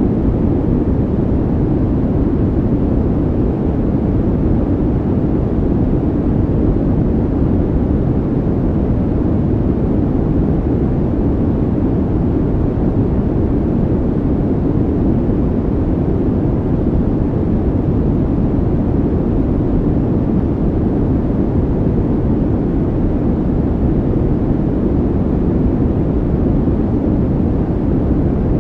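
Steady, unchanging low rumbling noise, an added calming ambient sound track, even throughout with no tones or rhythm.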